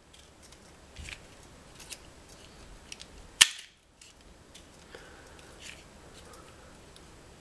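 Automatic self-adjusting wire stripper snapping as it strips insulation off thin wires: one sharp snap about three and a half seconds in and another near the end, with faint clicks and the rustle of wires handled between.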